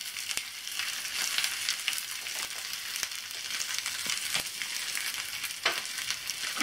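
Leftover ghee tempering sizzling steadily in a pan under chopped dhokla pieces and vegetables, with a few sharp crackles.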